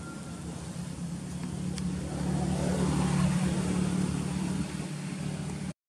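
A motor engine passing by: a steady low drone that grows louder over about three seconds, then fades away.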